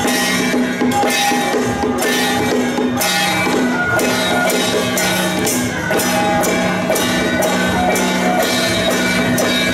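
Temple procession music: drums and cymbals struck again and again under sustained wind-instrument tones and a melody.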